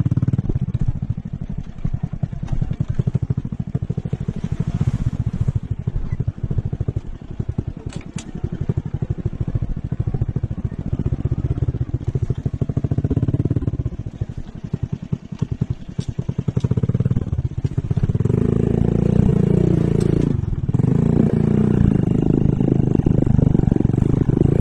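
Small motorcycle engine running while being ridden, its rapid low firing pulses steady at first. About two-thirds of the way in it gets louder and higher, with one brief dip in pitch before picking up again.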